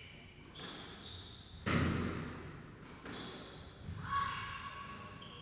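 A squash rally: a racket strikes the ball and it smacks off the court walls three times, the second hit the loudest. Sneakers squeak on the hardwood court floor near the end.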